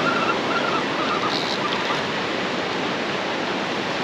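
Ocean surf washing steadily onto the beach, with the faint, wavering whine of a spinning reel being cranked that stops about a second in.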